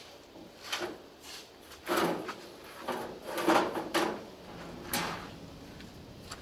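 A series of short scraping and knocking sounds, about five of them and the loudest in the middle, like objects being handled and moved about while working.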